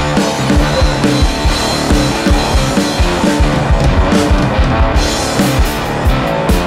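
Instrumental stoner rock played by a guitar, bass and drums trio. The drums keep a steady, dense beat, with cymbals striking repeatedly in the second half.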